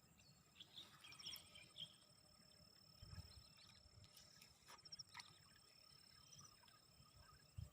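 Faint outdoor ambience: insects giving a steady high-pitched trill with short pulsed chirps over it, and a few soft rustles and clicks.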